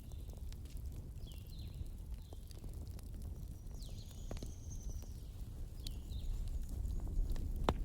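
Wood fire burning in a fireplace: a steady low rumble with scattered crackles and a sharp pop near the end. Several short, high, falling chirp-like whistles and one longer high whistle sound over it.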